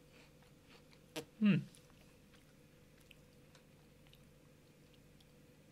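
Faint chewing of a Pocky biscuit stick, with small scattered crunches. About a second and a half in, a sharp click is followed by a short hum of the voice that falls in pitch.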